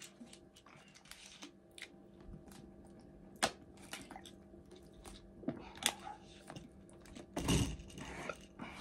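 A person drinking from a thin plastic water bottle: swallowing and crackling of the plastic, with a few sharp clicks, then a heavy breath out near the end.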